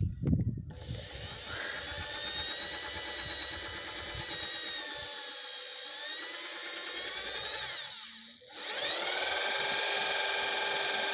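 Electric drill spinning a valve to lap it into a tractor cylinder head. It runs for about seven seconds with a wavering whine, stops briefly, then spins up again with a rising whine and holds steady.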